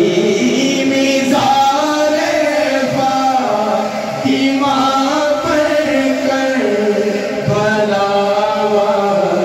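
Male voices singing a naat into microphones: Urdu devotional verse chanted without instruments in long held melodic phrases, amplified through a PA.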